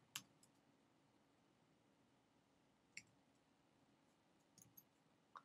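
Near silence with a few faint, scattered clicks from working at the computer: one just after the start, one about three seconds in, and a few close together near the end.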